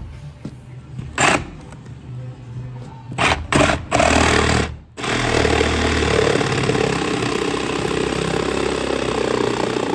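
Background music, with a few loud sharp knocks in the first half.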